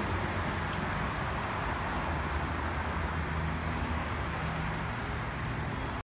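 Fans of a stainless-steel ultrasonic fogger running with a steady whir and a low hum.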